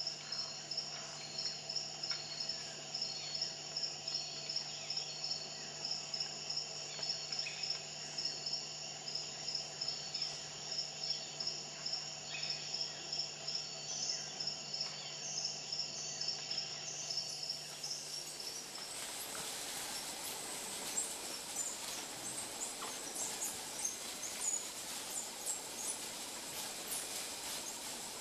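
Chorus of tropical forest insects, several trilling together in steady, fast-pulsing high tones. About two-thirds of the way through, this gives way to a denser hiss with many scattered faint ticks.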